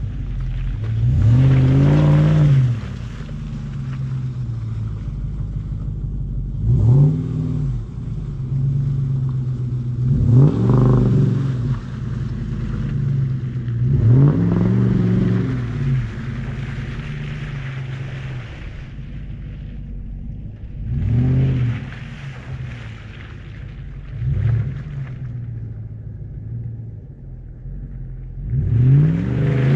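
A motor running steadily and revving up and back down about six or seven times, each rev a short rise and fall in pitch.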